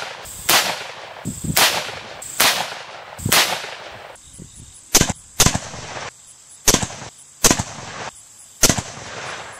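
A string of about nine rifle shots from a cut-down, recrowned Handi rifle, each a sharp crack with a short echo, coming about a second apart.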